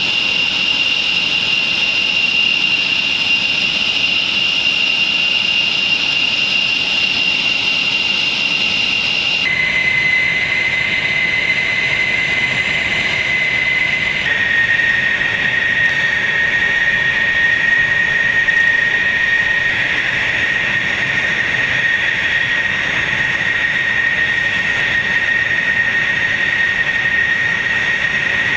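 The General Electric TF34 turbofan engines of A-10 Thunderbolt II jets running, with a steady high whine over the jet noise. The whine steps down in pitch about nine seconds in and again about fourteen seconds in.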